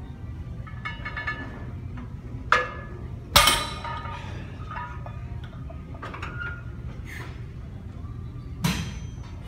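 A barbell loaded with about 317 lb of weight plates set down on a rubber gym floor at the end of a deadlift set: a clank about two and a half seconds in, then a louder crash about a second later with the plates clinking and ringing. A single sharp thump near the end.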